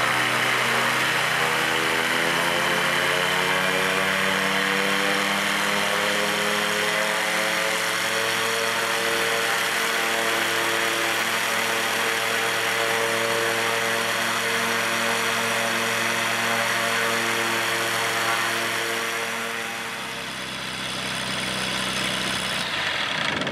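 Rotax 912iS four-cylinder boxer aircraft engine ground-running at a steady idle with the propeller turning, uncowled. The steady engine note dips and changes about twenty seconds in.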